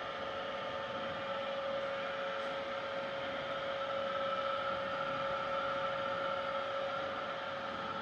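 Azuma AMK-1450F radial drilling machine running steadily, a continuous mechanical hum with a steady whine over a hiss.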